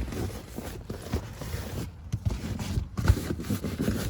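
Rustling, scraping and light knocks of a car floor mat being handled and fitted into the front passenger footwell, with a slightly stronger knock about three seconds in.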